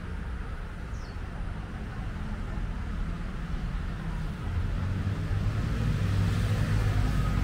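Low rumble of a passing motor vehicle that swells to its loudest about halfway through.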